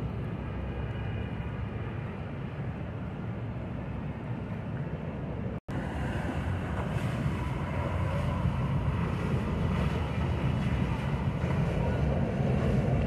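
Steady low rumble of boat motors on the river, with water and wind noise on the microphone. The sound drops out for an instant about five and a half seconds in, then comes back a little louder.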